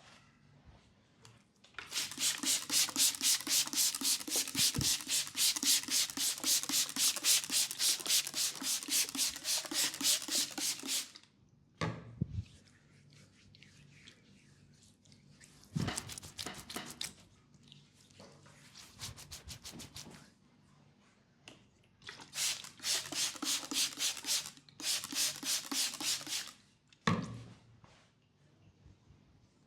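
Hands rubbing briskly in a massage: fast, even strokes, about four a second, in one long run of some nine seconds, then shorter runs with quiet pauses between.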